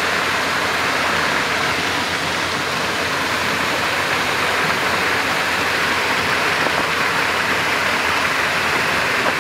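Pond aerator running: a steady rush of churning water.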